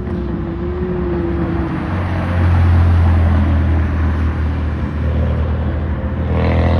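A car engine running loudly with a deep low-end, its pitch rising near the end as the engine revs up.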